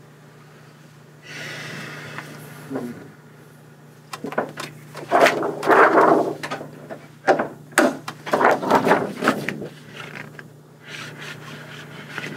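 Scuffing, rustling and knocking handling noises from about four seconds in, preceded by a brief rustle, all over a steady low electrical hum.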